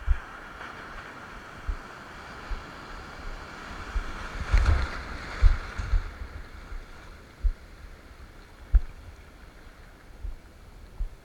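Ocean surf rushing, swelling about four to five seconds in and then easing off, with wind buffeting the microphone in short low thumps.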